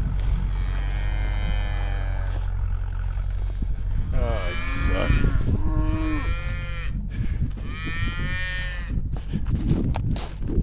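Cattle mooing: several long calls, two of them overlapping about halfway through, over a low steady engine hum.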